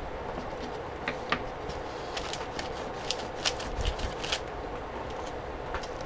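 Neocolor II water-soluble wax crayons being scribbled onto paper: scratchy strokes with scattered small clicks and taps, over a steady background hiss.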